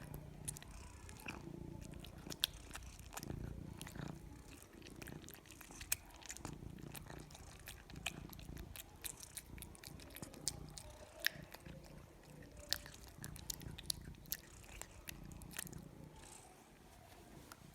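A cat chewing its food, with many sharp, irregular crunching clicks, over a low purr that swells and fades every second or so.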